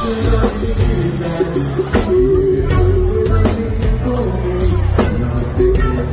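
Male singer singing in Portuguese into a microphone, live, over acoustic guitar and a band with drums.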